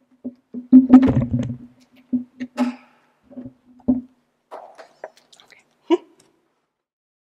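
Handling noise at a wooden pulpit picked up by the pulpit microphone: a run of irregular knocks and thumps, the loudest about a second in, then rustling and a last sharp click near six seconds as the speaker turns away from it.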